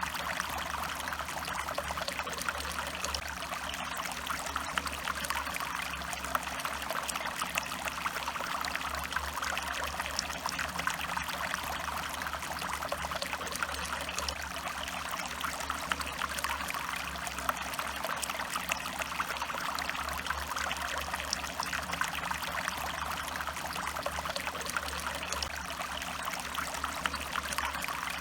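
Stream water trickling and splashing steadily over rocks.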